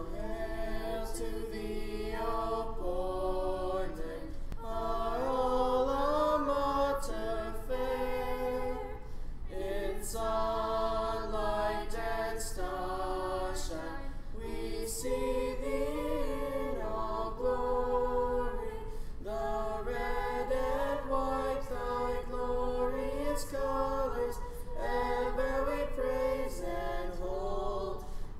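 High school choir singing a school alma mater a cappella, in slow, held chords that change every second or two.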